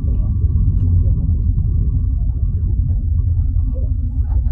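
Steady low rumble, with a faint thin hum above it.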